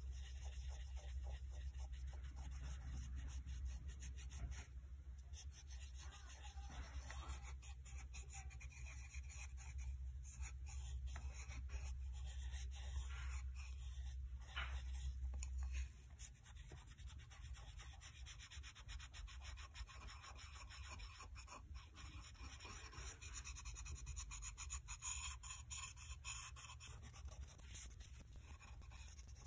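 Fingertips and a tissue rubbing and wiping over the glazed surface of a ceramic bowl along a repaired crack, a faint, continuous scratchy rubbing. A low background hum stops about halfway through.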